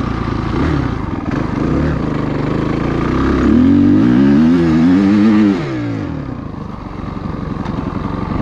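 Dirt bike engine revving up and down as it is ridden. It climbs to its loudest and highest pitch about three to five seconds in, cuts back suddenly, then runs on lower and steadier.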